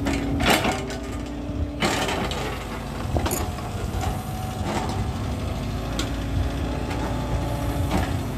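Furukawa mini excavator's diesel engine running with a steady hydraulic hum as the machine works. A sharp clunk comes every second or so, about six in all, from the working arm and bucket.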